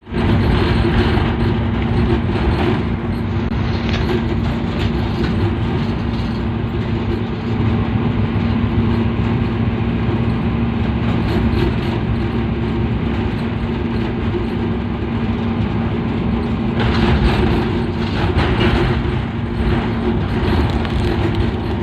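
GEU-40 diesel-electric locomotive running at speed, heard from inside its cab: a steady engine drone with a low hum over continuous wheel-and-rail noise. About 17 seconds in, the rushing, rattling noise grows louder for a couple of seconds.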